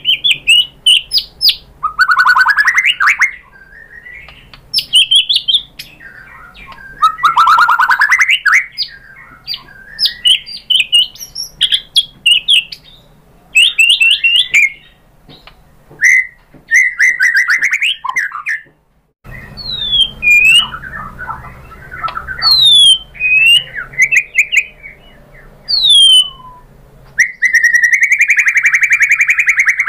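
White-rumped shama singing hard, fired up: loud varied phrases of whistles, fast chattering trills and sharp down-slurred notes, its repertoire of learned imitations (isian) mixed in. There is a short break about 19 s in, and a long fast buzzy trill near the end.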